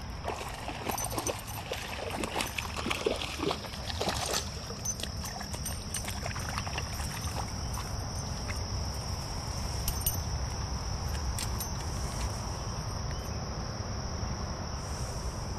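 A steady, high-pitched drone of insects singing, with scattered clicks and knocks in the first four seconds or so.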